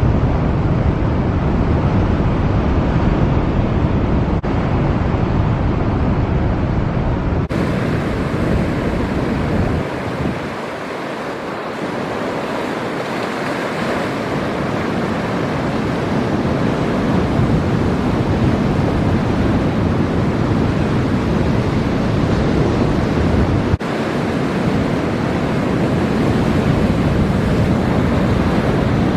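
Heavy surf breaking with strong wind buffeting the microphone as a deep rumble; the wind rumble eases for a couple of seconds about ten seconds in.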